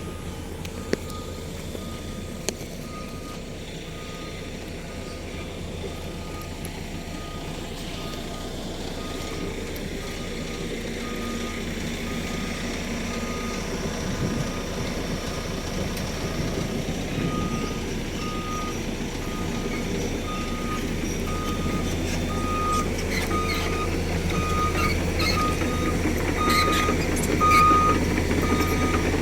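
Excavator's diesel engine running steadily while its travel alarm beeps over and over, about one to two beeps a second, as the machine moves. The engine grows louder toward the end, with scattered knocks and clatter in the last few seconds.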